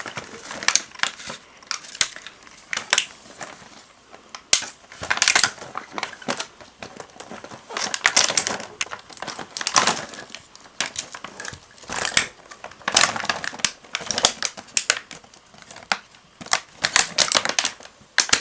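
Plastic packaging of a toy doctor kit crinkling, with irregular clicks and rustles, as the kit is opened by hand.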